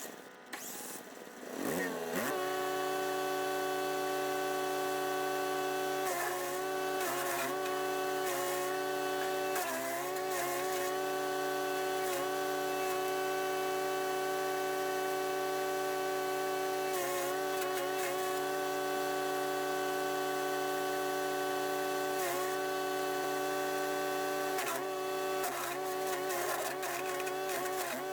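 Wood chipper's 420cc four-stroke engine starts and comes up to a steady, fast run within about two seconds. Its pitch then dips briefly about ten times as it takes load and recovers.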